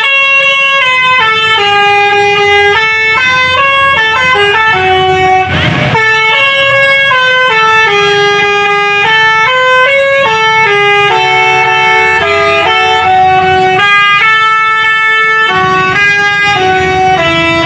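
A bus's telolet horn, a multi-tone musical air horn, playing a tune: a fast run of loud stepped notes that jump up and down in pitch, with a brief pause before the last few notes.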